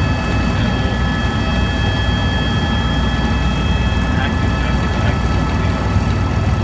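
Helicopter in flight heard from aboard: a steady low rotor and engine drone, with several steady high whining tones from the engine over it.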